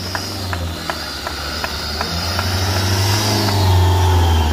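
Engine of a modified off-road 4x4 running and revving, growing louder to a peak about four seconds in, with a high whine over it. A run of sharp ticks, about two or three a second, sounds through the first half.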